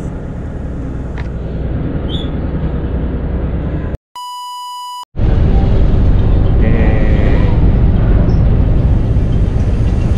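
Steady rumble and wind noise aboard a passenger ferry at sea, cut about four seconds in by a single one-second electronic beep, after which the rumble returns louder and deeper.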